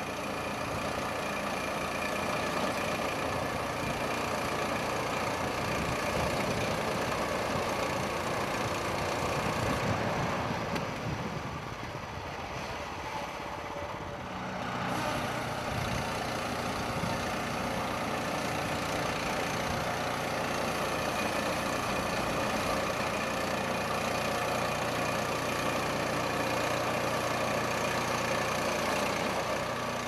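Honda GX390 single-cylinder engine of a portable band sawmill running steadily under load as the band blade cuts through a log. It drops back and quietens for a few seconds about ten seconds in, then comes back to full.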